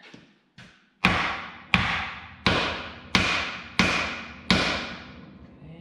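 A sledgehammer striking the steel steering knuckle of a tractor's front axle six times, about 0.7 s apart, each blow clanging and ringing briefly. The blows are meant to shock the knuckle cap loose.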